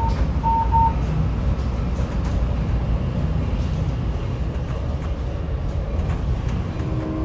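Amtrak Pacific Surfliner passenger car riding along the track, a steady low rumble heard from inside the coach. Two or three short beeps at one pitch sound in the first second.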